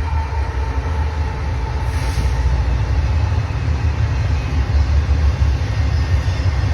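Union Pacific freight train led by two GE Dash 9 diesel locomotives, passing with a loud, steady low rumble.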